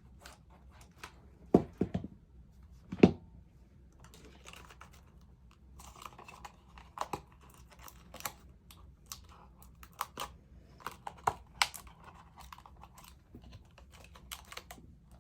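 Cardstock being handled, folded and pressed by hand: scattered light clicks, taps and crinkles, with two sharper knocks about one and a half and three seconds in.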